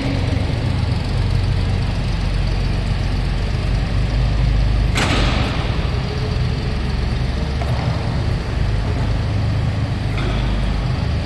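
Railroad turntable in motion: a steady low mechanical rumble, with a sharp clank about five seconds in.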